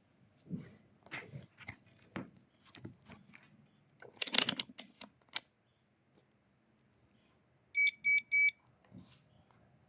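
Handling noises, clicks and rustling, with a louder clatter about four seconds in. Near the end come three short, high electronic beeps from a digital multimeter.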